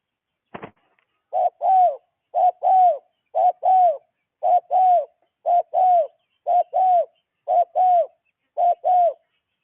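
A bird calling in a steady rhythm: a short note followed by a longer note that rises and falls, the pair repeated about once a second, eight times. A brief click comes just before the first call.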